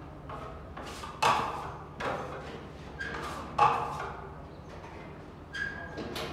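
Hand trowel scraping wall putty across a plastered wall in short strokes, about one a second, two of them louder and a few with a brief squeak.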